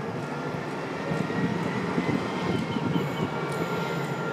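Freightliner Class 70 diesel locomotive approaching with its train, the engine running steadily with a thin, steady whistle over it.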